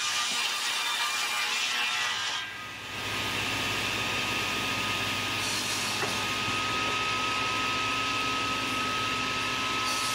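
Sawmill machinery running with a steady mechanical din. It dips briefly about two and a half seconds in, then resumes with a steady whine over a low hum.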